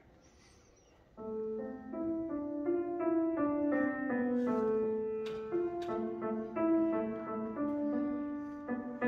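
Grand piano played solo. After a short quiet pause, the playing starts about a second in with a quick series of single notes, mostly in the middle range.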